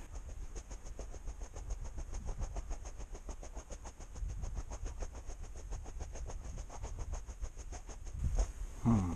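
A person walking through snow: a rapid, even ticking of about six strokes a second over a low rumble, with a short voice sound near the end.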